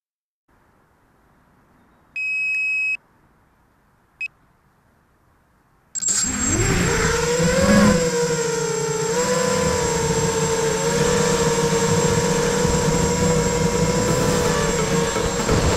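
Two electronic beeps, a longer one about two seconds in and a short one about four seconds in. Then, about six seconds in, a ZMR250 quadcopter's brushless motors and propellers spin up with a rising whine and run on as a loud, steady high whine with a constant high tone over it, heard from the camera on board in flight.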